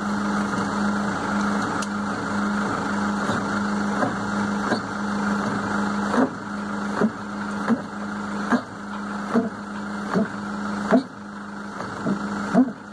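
An engine idling steadily with a low, even hum. From about six seconds in, short rising squeaks or chirps repeat roughly once a second over it.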